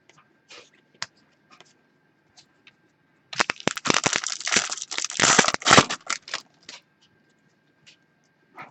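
A foil trading-card pack wrapper is torn open and crinkled for about three seconds, starting a little over three seconds in. Before and after it come scattered light clicks of cards being handled.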